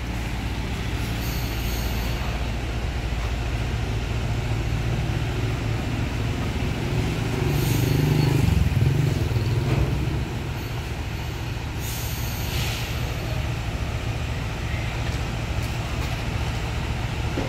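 Heavy-haul truck rig running low and steady as it slowly tows a 126-tonne oversize load past. A motorbike passes close about halfway through, and the noise swells briefly. A few short hisses come through.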